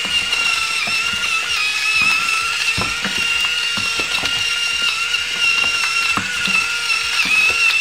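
Electric salt grinder running as it grinds sea salt: a steady motor whine with irregular crunchy ticks from the salt crystals.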